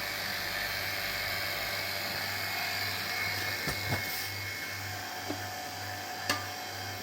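Refrigeration vacuum pump running steadily, pulling a vacuum on an R290 ice machine's refrigerant circuit, with a few light clicks.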